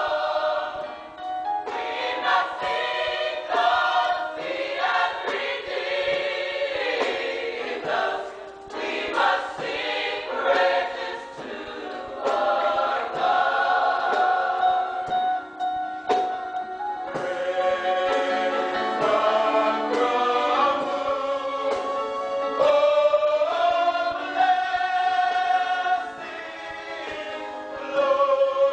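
Gospel choir of men and women singing together, holding long chords in the second half.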